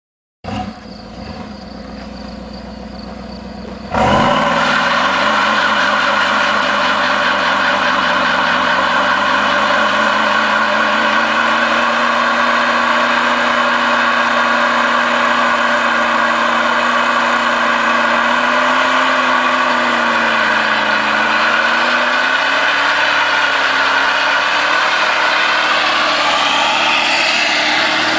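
Old Dodge pickup's engine held at high revs in a burnout, the rear tyres spinning on asphalt. It runs lower for the first few seconds, then jumps to a loud, steady high rev about four seconds in; the revs sag briefly past the middle and climb again near the end.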